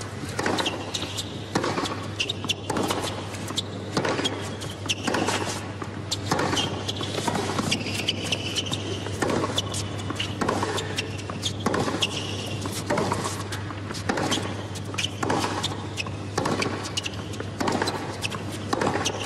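Tennis rally on a hard court: racquet strikes on the ball and ball bounces knock about once a second, with short sneaker squeaks and a steady low hum under them.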